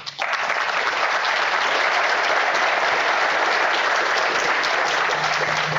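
Audience applauding: dense, even clapping that breaks out abruptly and holds steady.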